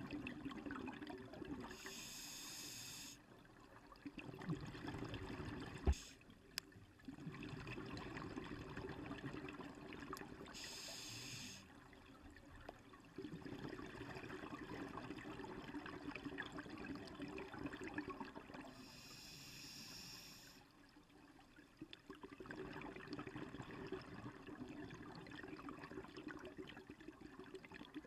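A scuba diver breathing through a regulator underwater. Three short hissing inhalations come about eight seconds apart, each followed by a longer bubbling, gurgling exhalation. There is a single sharp click about six seconds in.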